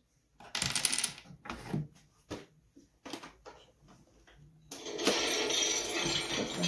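Plastic finger joints of an Infinity Gauntlet replica clicking rapidly as the fingers are bent and flexed. There is a short spell about half a second in and a longer, denser run over the last two seconds, with scattered clicks between.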